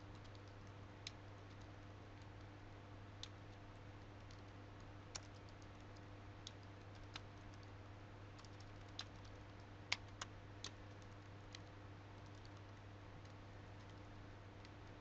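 Computer keyboard being typed on: faint, sparse key clicks at an irregular pace, the loudest about ten seconds in, over a steady low hum.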